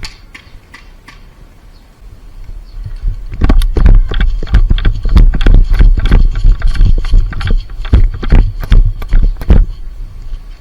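Quick, irregular footstep thumps with rustling, starting about three seconds in and stopping near the end, with a heavy low rumble under each step.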